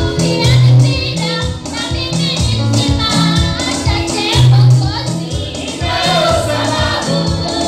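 Live gospel praise music: a woman lead singer with a small group of backing singers, over an electronic keyboard playing bass notes and a steady beat.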